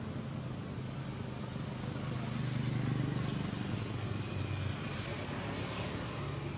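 Low engine hum of a motor vehicle going by, swelling to its loudest near the middle and dropping away about four and a half seconds in.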